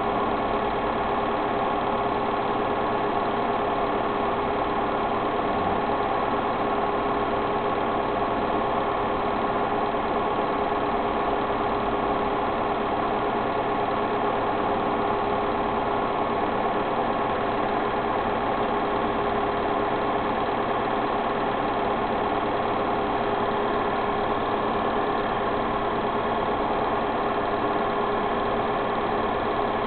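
Steady mechanical whirr of a small motor running at an even speed, with a constant hum and no breaks.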